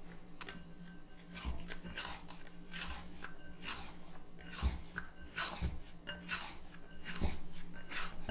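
A dough scraper scraping around the inside of a glass bowl to loosen proofed bread dough from its sides: a series of short scrapes with a few soft thumps, the loudest at the very end.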